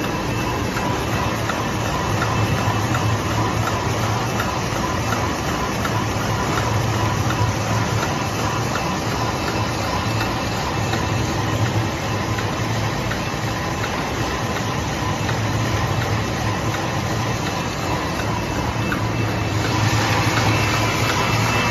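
Bottled-water filling and labeling line running: conveyors and a rotary OPP labeling machine give a steady mechanical hum with a low drone, faint whining tones and light regular ticking. It grows a little louder and brighter near the end.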